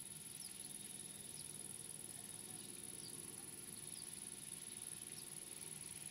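Faint, steady high-pitched stridulation of an insect such as a cricket, with a few short faint chirps over it.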